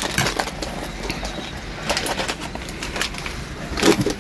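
Metal spoons clinking and scraping against plates and a bowl as food is served, in scattered sharp clicks. A short, low, voice-like sound comes near the end.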